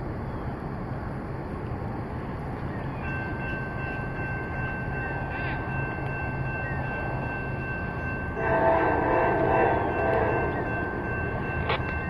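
Approaching freight locomotive's horn blowing one blast about eight seconds in, lasting about two seconds, the loudest sound here, over steady wind noise on the microphone. A grade-crossing warning bell starts ringing about three seconds in, a steady high tone.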